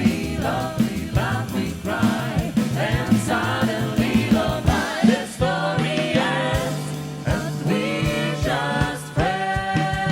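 Vocal group singing in close harmony over a bass line and percussion, moving into one long held chord about nine seconds in.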